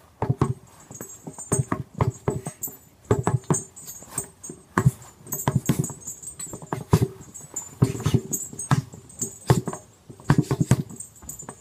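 Fists hitting a stack of car tyres rigged as a punching bag: quick flurries of dull thuds, two to four blows at a time with short pauses between.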